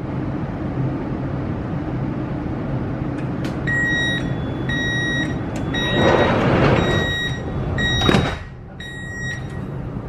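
Metro train's door-closing warning beeping, about one beep a second, over the steady hum of the standing train. Midway there is a loud rush of noise, and a little after eight seconds in the sliding doors shut with a thud.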